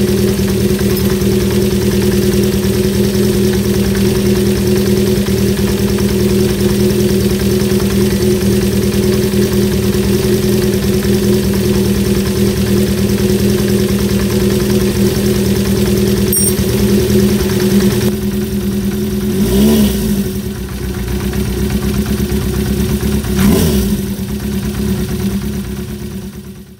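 Honda CB350 Four's air-cooled inline-four engine idling steadily, with two brief throttle blips about two thirds of the way through and near the end.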